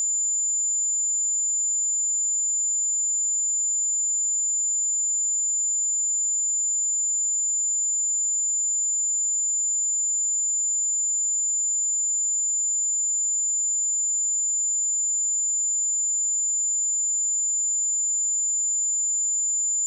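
A steady, high-pitched 7091 Hz pure sine-wave test tone, one unchanging pitch.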